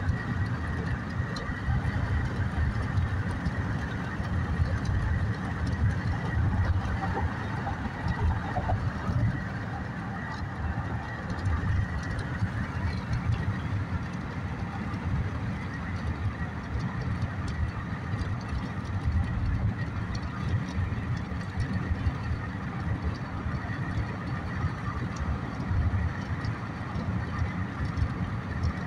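Steady road and engine noise heard from inside a moving car's cabin, a low rumble with tyre hiss above it.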